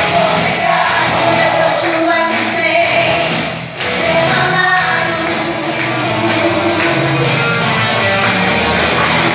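Music: voices singing over instrumental band accompaniment, with a steady bass line.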